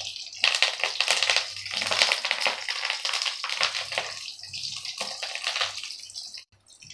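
Curry leaves and soya chunks deep-frying in hot oil: a dense sizzle with fast spluttering crackles as the fresh leaves hit the oil. It thins out near the end.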